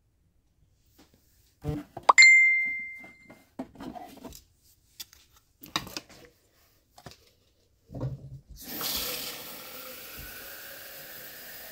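Kitchen sounds: a single bright clink that rings and dies away over about a second, a few light knocks and clatters, then water running steadily from about eight seconds in.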